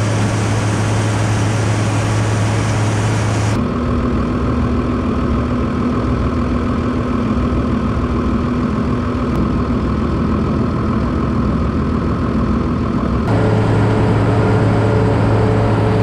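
Tractor engine running loud and steady, heard from the open operator's seat while the tractor pulls a tedder through cut rye. The engine note changes abruptly about three and a half seconds in and again near the end.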